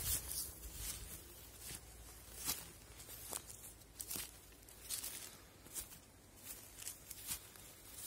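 Footsteps through tall, dry grass: a short rustling swish of dead stalks with each step, at an uneven walking pace.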